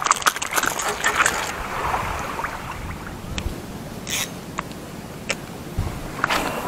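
Steady wind and water noise on the microphone, with clicks and taps from a spinning rod and reel being handled, denser in the first second or so. A short hiss comes about four seconds in, as the reel is worked for a cast.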